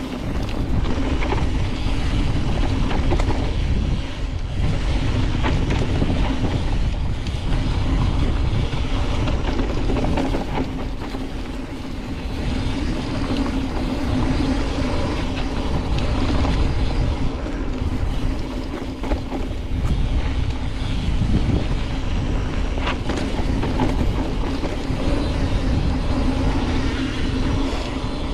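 Cross-country mountain bike descending a rough downhill trail at speed: wind buffeting the microphone over the tyres rolling on dirt, with scattered clicks and rattles from the bike over rough ground.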